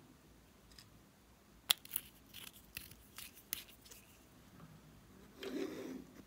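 Small glass nail-polish bottles clicking and tapping as they are handled, about six sharp clicks in the middle, then a short rustling scrape near the end.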